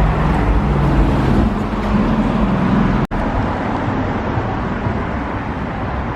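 A car engine running close by, its pitch shifting over the first three seconds; then, after an abrupt cut, steady street traffic noise.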